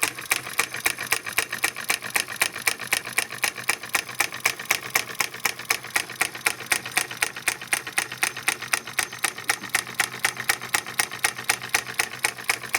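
Homemade solenoid engine running on 12 volts, its solenoid pulling the plunger in each time the micro switch closes, making a steady mechanical clacking of about four to five clacks a second. A faint low hum runs underneath.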